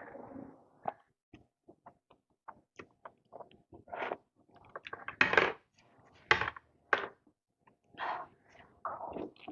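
Close-miked mukbang eating: wet chewing, sucking and smacking of the mouth in short irregular bursts, with small clicks between them.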